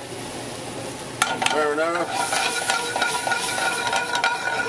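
Marinara sauce sizzling in a hot skillet of pan drippings over a gas flame, stirred and scraped around the pan with a utensil. A run of quick scrapes and knocks starts about two seconds in.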